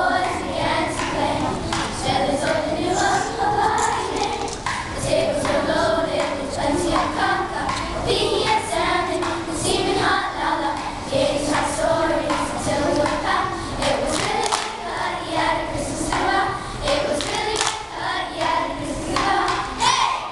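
A large group of children singing a song together in unison, with scattered short clicks or claps.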